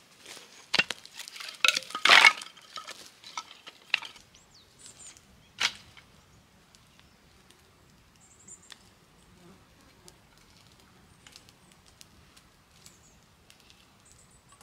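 A quick run of sharp knocks, clinks and cracks over the first four seconds, with one more sharp crack a little later, then a campfire burning with faint, sparse crackles and pops.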